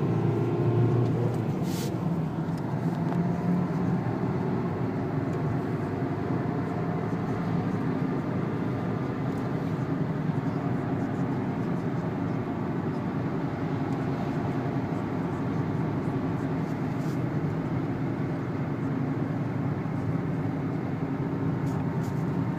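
Renault 2.0-litre turbo diesel engine running steadily at low speed, heard from inside the cabin, its pitch shifting slightly in the first couple of seconds, with a faint hiss of tyres on the wet track. A brief sharp click about two seconds in.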